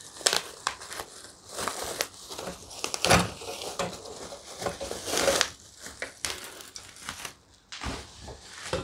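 Bubble wrap crinkling and crackling as it is pulled off a folding camp stool's aluminium frame, with a single knock about three seconds in.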